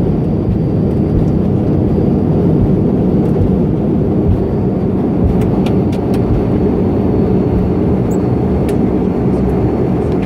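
Dash 8 Q400 turboprop heard from inside the aircraft as it slows and rolls after landing: a steady, loud low rumble of engines and propellers, with a few faint clicks.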